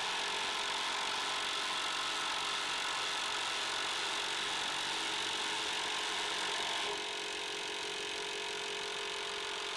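Milwaukee M12 Fuel Stubby 1/2 in. cordless impact wrench hammering steadily as it drives a long screw into wood. The sound drops a little in level about seven seconds in.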